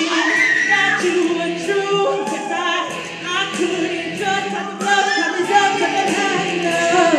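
Female vocalist singing a pop song live into a handheld microphone, amplified on stage.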